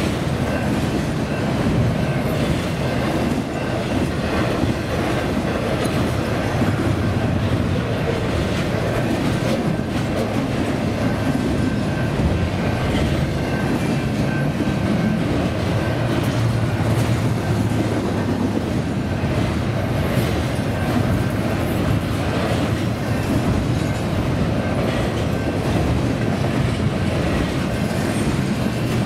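Double-stack intermodal freight train rolling past at close range: a steady rumble and clatter of steel wheels on the rails as the loaded well cars go by.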